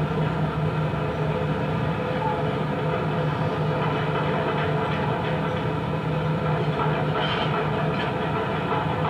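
A steady low mechanical drone with a constant hum, like machinery running, played back from a field recording over studio monitor speakers.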